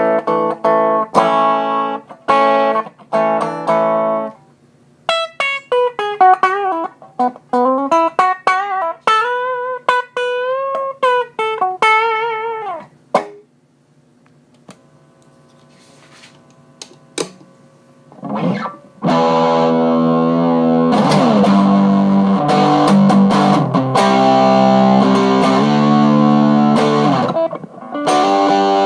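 Epiphone Sheraton II semi-hollow electric guitar played through an amp: clean chords first, then a single-note melody with bends and vibrato. After a few seconds' pause in the middle it comes back with loud, overdriven chords that ring on.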